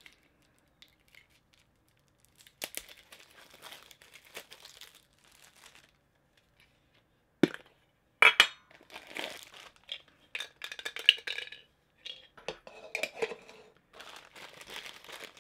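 Opening a sealed Funko Soda can and handling what is inside: light clicks and taps, a sharp snap about seven seconds in, then bouts of plastic crinkling and rustling.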